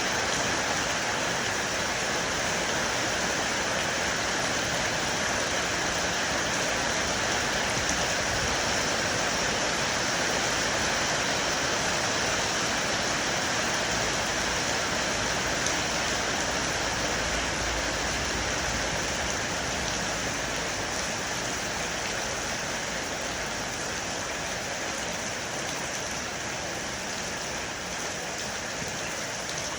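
Heavy rain falling steadily on and around an LG air conditioner unit, loud and unbroken.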